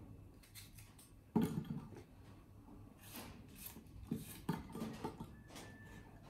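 Kitchen handling sounds: scattered knocks and clatter of dishes and utensils, the loudest a sharp knock about one and a half seconds in.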